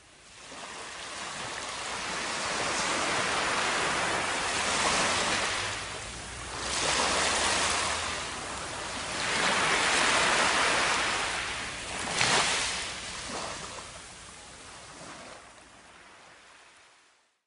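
Ocean surf washing up a beach, the wash swelling and drawing back about four times before fading out near the end.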